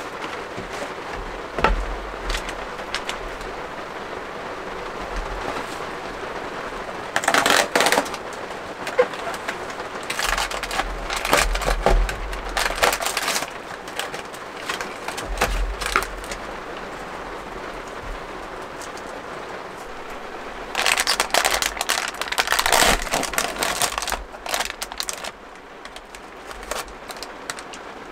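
Crinkling and crackling of a cardboard snack box and its foil inner bag being opened and torn, in a few separate bouts, over the steady patter of rain on the camper.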